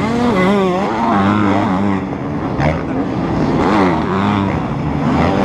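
Motocross bike engines revving hard, several at once, the pitch climbing and dropping over and over as the bikes race around the dirt track and over the jumps.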